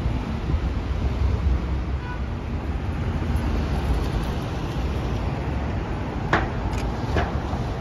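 City street traffic: a steady low rumble of passing vehicles, with a few short knocks or clacks near the end.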